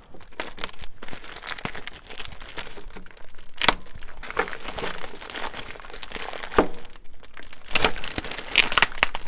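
Clear plastic parts bag crinkling and crackling as it is handled and cut open with a knife. There are a few sharp clicks along the way, the loudest about a third of the way in.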